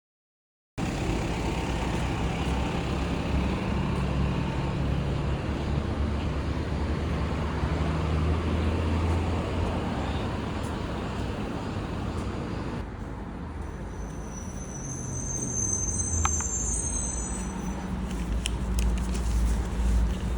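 Steady road and engine noise from inside a moving car, with a low hum under a broad rushing noise.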